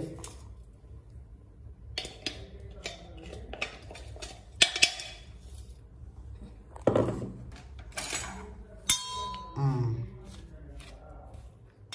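A metal utensil scraping and clinking against a stainless-steel plate as hot, freshly ground coconut chilli powder is spread out to cool, in scattered separate clinks and knocks.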